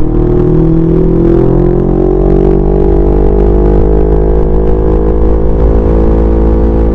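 CFMoto 400NK's parallel-twin engine pulling in gear, its pitch rising over the first three seconds and then holding steady at cruising speed. A steady low wind rumble on the microphone lies underneath.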